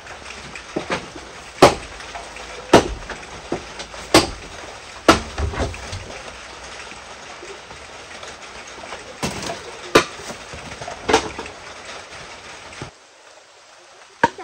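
Firewood being chopped with a blade: about nine sharp, irregular chops in two groups with a pause between them. A steady hiss of rain runs behind them and cuts off suddenly near the end.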